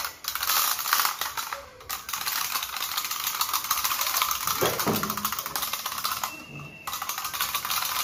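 Several wind-up plastic parrot toys running at once, their clockwork mechanisms making a dense, rapid clicking rattle. The sound dips briefly about two seconds in and again for about half a second between six and seven seconds.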